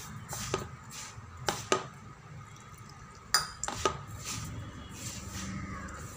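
A hand mixing damp rice flour and roasted rava in a metal bowl: a soft gritty rustle of the crumbly flour, broken by about five sharp knocks against the bowl's metal side.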